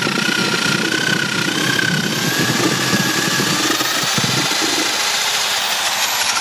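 Electric drill driving a homemade wooden apple scratter, its motor whining steadily while it crushes a hopperful of apples with a coarse grinding rattle. About four and a half seconds in the grinding thins and the motor's whine rises a little.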